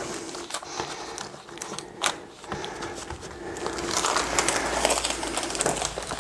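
Rustling and scraping with scattered sharp clicks, from hands working a sealing band along the metal frame of a folding attic stair. The noise grows denser and louder about four seconds in.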